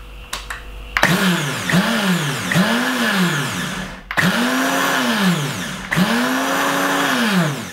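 Optimum 9200 high-speed blender pulsed five times, grinding dry shredded coconut down fine. Each pulse the motor whines up in pitch and falls away; the first three are short and the last two longer. A few light clicks come just before the first pulse.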